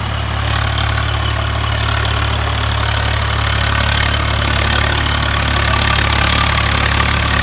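Drive motor of a homemade model tractor running steadily as it pulls a loaded trolley, a constant low drone with a higher whine over it.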